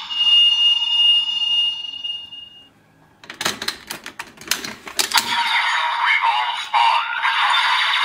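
Bandai DX Oneness Raise Buckle transformation toy playing electronic sound effects through its small speaker. A steady high beep tone is held for about two and a half seconds, then a burst of sharp plastic clicks as the buckle is worked. About halfway through, tinny electronic sounds from the toy speaker start up and carry on.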